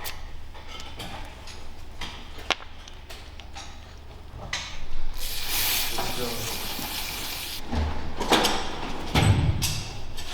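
Light clicks and knocks of hand work on brake parts, with a steady high hiss lasting about two and a half seconds midway through, then a few heavier thuds near the end.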